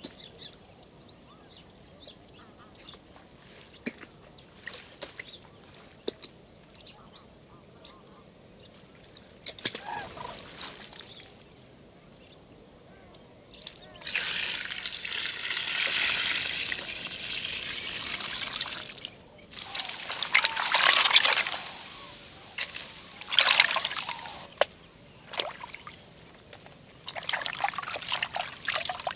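Water poured from a bucket over bitter gourds in a tub: a long steady splash of about five seconds, then two shorter pours. Near the end, hands slosh and rub the gourds in the water. Before the pouring, it is quiet apart from faint chirps and a small splash.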